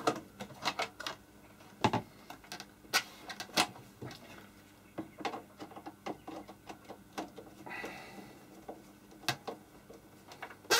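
Screwdriver working the screws and metal back frame of a Tektronix 2445A oscilloscope: irregular small clicks and taps, with a brief scrape about eight seconds in.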